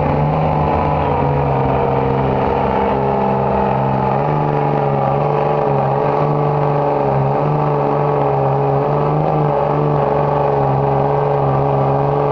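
Diesel pickup truck engine held at high revs under full load while pulling a weighted sled down the track: a loud, steady drone that wavers slightly in pitch.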